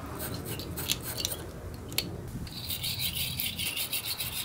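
Wire-brush battery terminal cleaner scraping back and forth, cleaning corrosion off a lead battery post and terminal clamp. The scraping comes in quick strokes with a couple of sharp clicks, then turns to a higher, hissier scrape about halfway through as the terminal clamp is worked on the cleaner's other brush.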